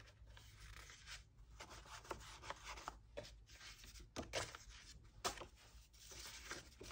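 Sheets of double-sided patterned paper faintly rustling and rubbing against each other as they are handled and leafed through, with a couple of sharper paper snaps about four and five seconds in.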